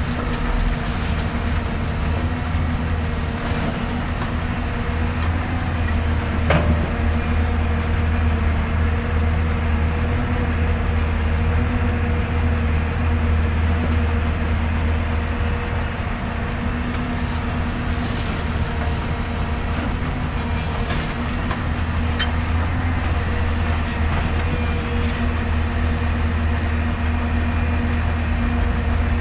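Hyundai Robex 220-9S excavator's diesel engine running steadily, with two brief sharp knocks about six seconds in and near the three-quarter mark.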